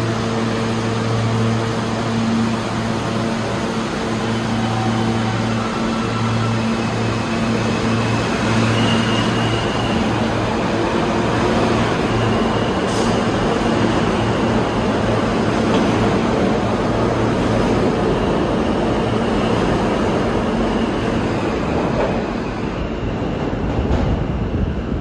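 J-line subway train moving through the station: wheel and rail noise over a steady low hum, with the hum fading out near the end.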